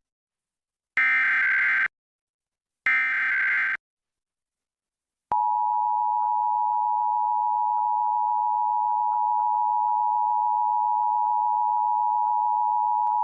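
Emergency Alert System header: two short bursts of the screeching digital SAME data signal, then, after a short pause, the steady attention tone (the 853 and 960 Hz two-tone signal) for about eight seconds, cutting off abruptly. It announces an EAS test message.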